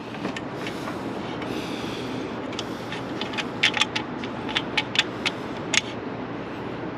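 Small hard objects being handled: scraping and rummaging, with a run of sharp clicks and ticks in the middle.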